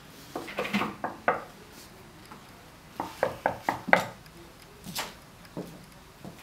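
Sharp clicks and clatter of small hard objects handled at a desk, in two quick bursts of several knocks each, followed by a few footsteps on a hard floor in a small, echoing room.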